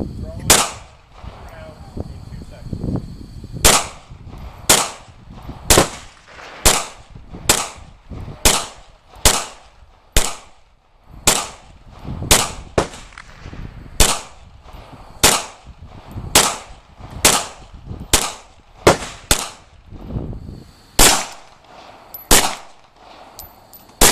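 Glock 22 pistol fired in a steady string of about twenty shots, roughly one a second, each shot sharp and followed by a brief echo.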